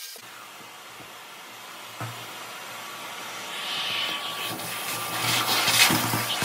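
Vacuum cleaner running steadily with a low hum through its hose. From about halfway the nozzle sucks up a pile of concrete drilling dust: the hiss grows louder, with grit crackling through the hose.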